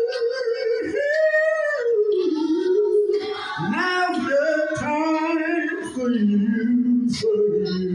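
A man singing a slow gospel invitation song, with drawn-out notes that slide up and down and waver with vibrato, and few clear words.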